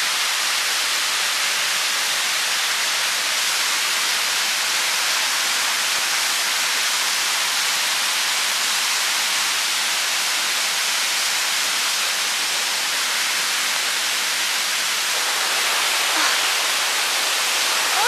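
Mountain stream running over rocks: a steady, even rush of water.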